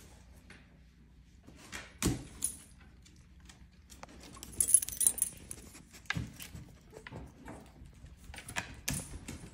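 A puppy's metal collar tag jingling, loudest about five seconds in, among scattered sharp clicks and knocks.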